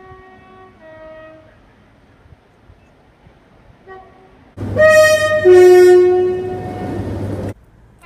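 Train horn sounding two tones: a faint low-then-high call in the first second and a half, then about halfway in a loud close call, a short high note followed by a longer, lower note, which stops abruptly.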